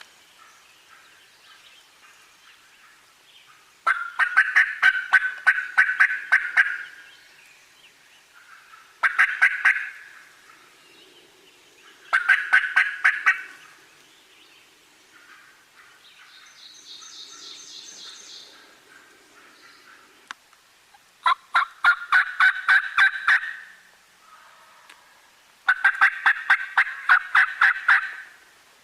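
Wild turkey calling: five runs of rapid, evenly spaced notes, each lasting one to two and a half seconds, with a fainter, higher call about midway.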